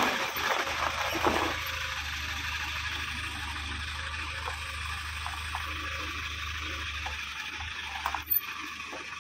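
Steady rushing, water-like noise, with a low hum underneath that fades out about seven and a half seconds in.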